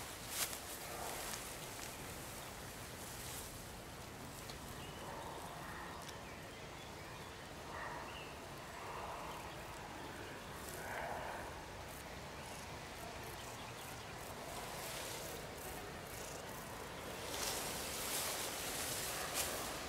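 Faint countryside ambience of insects buzzing in the grass, with soft rustling of grass and clothing as bodies shift. The rustling gets louder a few seconds before the end.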